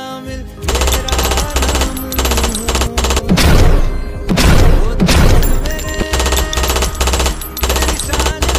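Rapid automatic gunfire sound effect laid over background music, starting under a second in, with two louder, heavier stretches near the middle.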